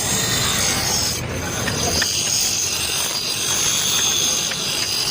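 A blade being sharpened: a steady rasping of metal being ground, with a continuous high whine that dips briefly about a second in.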